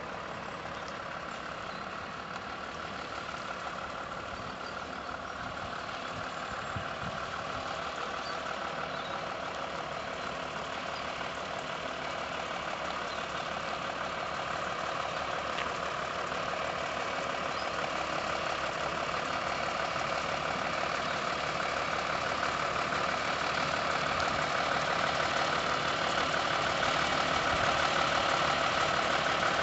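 Diesel engine of an Iveco rigid lorry running at low speed as the truck creeps slowly closer, growing steadily louder.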